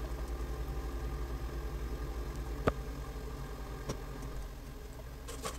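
Clams steaming in white wine in a covered frying pan on low heat: a steady low bubbling rumble, with one sharp click a little over two and a half seconds in and a smaller one near four seconds.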